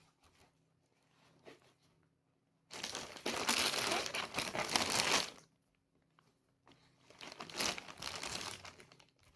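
Packaging crinkling as it is handled: quiet at first, then a long stretch of loud crinkling a little under three seconds in, and after a short pause another stretch of crinkling.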